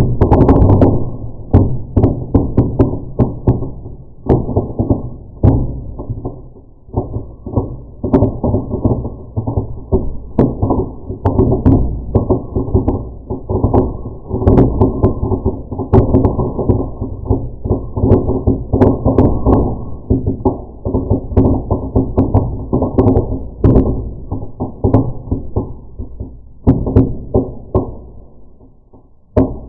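Firework going off, slowed down: a dense, irregular run of deep pops and thuds that thins out near the end.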